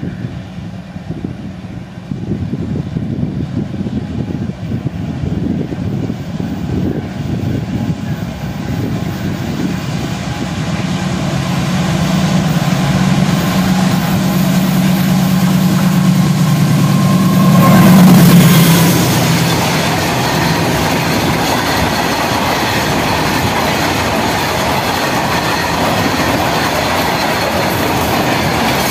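GE ES57ACi (WDG-6G) diesel-electric locomotive with its 16-cylinder turbocharged four-stroke engine approaching while hauling a long freight train: a low engine drone grows steadily louder and peaks as the locomotive passes a little past the middle. After that comes the steady rolling rattle and clickety-clack of hopper wagons going by close.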